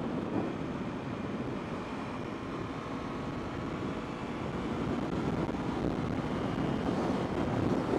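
Yamaha YZF-R3's parallel-twin engine running steadily at highway speed in top gear, around 8,000 rpm, under a heavy rush of wind over the microphone. It gets a little louder near the end.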